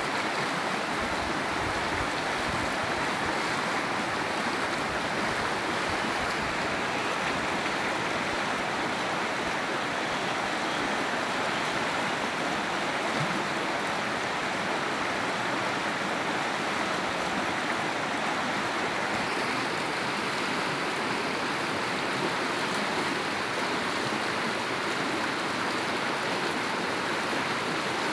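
Fast-flowing muddy stream rushing steadily over rocks, a constant even wash of water noise.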